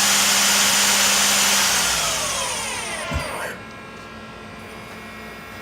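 Main spindle of a Mori Seiki NL1500Y CNC lathe running at high speed, then spinning down about two seconds in, its whine falling in pitch until it stops about a second and a half later, with a brief low thump just after three seconds. A quieter steady machine hum remains.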